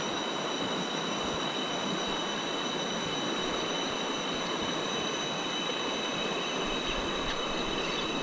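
Rushing water of a river rapid, a steady even rush, with steady high-pitched whining tones above it.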